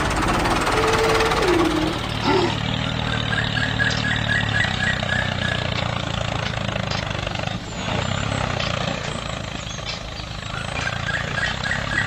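Mini tractor's engine running steadily.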